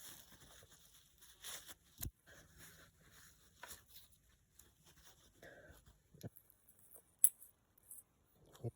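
Small irregular scratching and rubbing noises of a coin being cleaned by hand, with a few sharp clicks, the loudest about seven seconds in.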